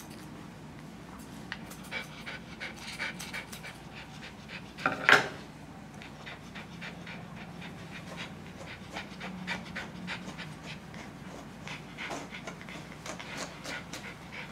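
Small dog panting, with scattered light clicks from the groomer's scissors and brush working its tail. One brief, loud sharp sound about five seconds in.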